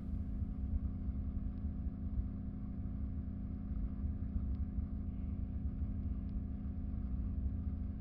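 A steady low rumble with a held hum over it, unchanging throughout, with a few faint clicks.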